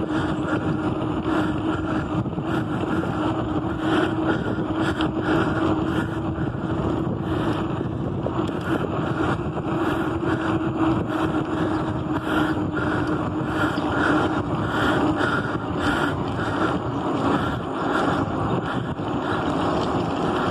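Wind rushing over the microphone on a moving bicycle, with a steady low hum underneath.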